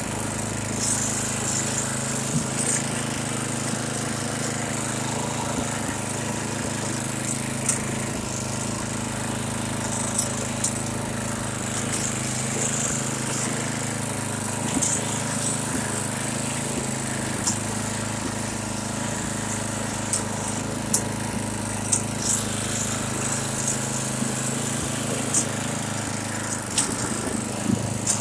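Tecumseh Snow King single-cylinder engine on a Troy-Bilt snowblower running at a steady speed, with brief sharp clicks now and then.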